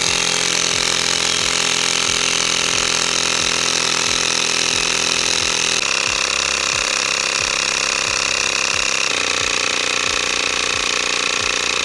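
Handheld electric tire inflator running steadily, pumping up an electric unicycle's knobby off-road tire toward a set 37 PSI. Its pitch steps down slightly about six seconds in and again about nine seconds in.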